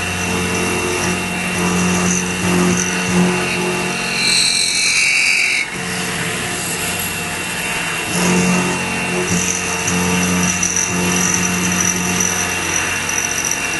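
X2 mini mill running, its end mill cutting aluminium, with a steady high whine from the machine. Music plays underneath, and there is a short hiss about four seconds in.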